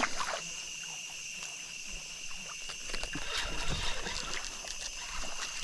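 Evening insect chorus: a steady high-pitched drone of crickets or katydids, over a low outdoor rumble with faint scattered rustles.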